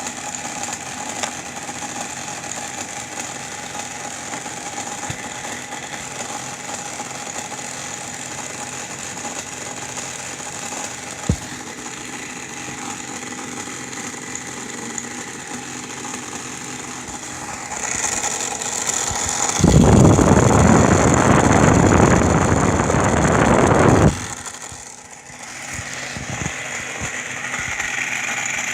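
Air conditioner running, its compressor and blower fan giving a steady hum with a high whine, with a single click about eleven seconds in. About twenty seconds in, a loud rushing noise comes in for about four seconds and cuts off suddenly, and then the steady running returns.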